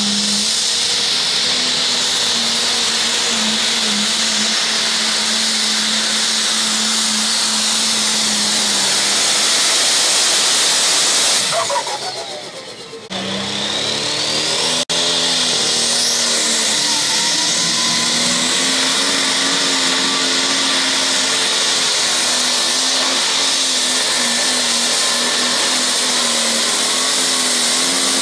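Pulling tractors' engines running hard under load as they drag weighted sleds, heard as several runs cut together. About twelve seconds in, the sound dips with a falling whine, then the next run's engine starts up abruptly, its pitch wavering as it pulls.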